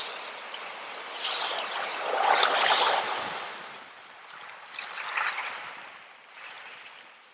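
Sea water washing in over shells and trickling back through them, with a fizzing, crackling wash. The biggest surge comes about two seconds in, a smaller one around five seconds, and then it fades.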